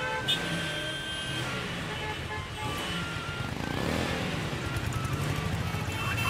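Busy city street traffic: vehicle engines running, with short car horn honks of different pitches at intervals.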